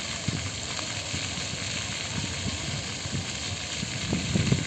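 Fountain water jets spraying and splashing: a steady hiss, with a few low bumps near the end.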